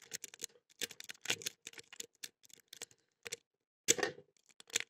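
Lock pick being raked back and forth across the pin tumblers of a padlock under light tension: irregular light metallic clicks and short scrapes, a little louder about four seconds in.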